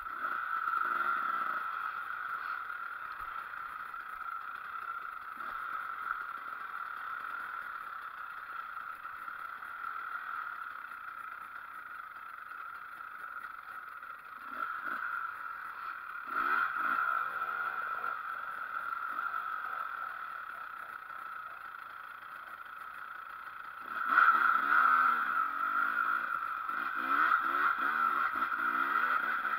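Enduro motorcycle engine running at trail speed, its note rising and falling with the throttle; it gets louder briefly about halfway through and again from about four-fifths in, revving harder.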